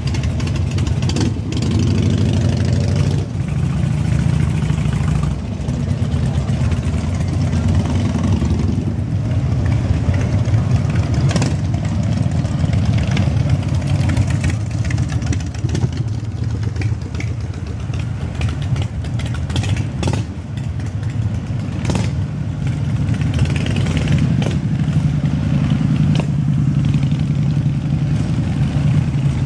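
A slow procession of heavy cruiser and touring motorcycles passing at low speed, their engines running in a steady low rumble. One engine revs briefly about two seconds in.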